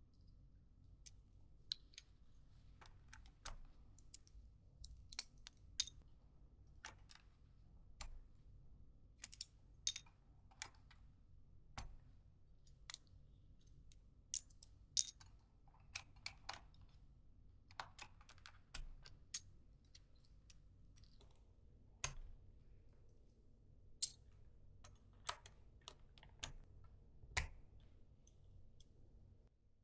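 Scattered plastic clicks of a computer keyboard's keys and keycaps being handled, irregular, one or two a second.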